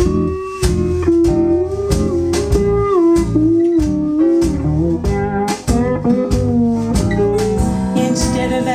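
Recorded music playing through a pair of Living Voice OBX-RW loudspeakers: a guitar lead sliding between notes over a steady beat of about two strokes a second.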